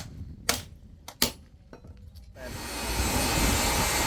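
Three sharp hammer blows on steel in the first second and a half, then a steady rushing machine-like noise that swells in from about two and a half seconds in.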